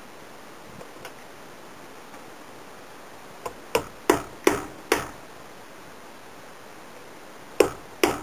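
Sharp metallic taps with a short ring after each: five in quick succession about three and a half seconds in, then two more near the end. A small hammer striking metal knife-kit parts at the bench.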